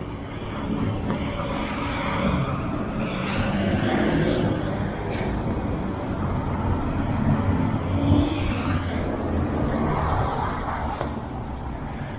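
Road traffic passing close by, heavy vehicles among it, swelling and fading as they go past. A short hiss about three seconds in and another near the end.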